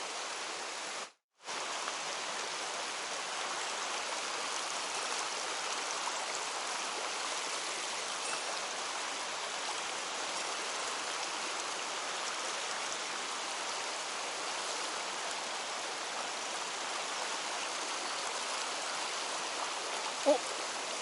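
Mountain stream water rushing steadily over rocks, a constant even hiss. The sound drops out completely for a moment about a second in.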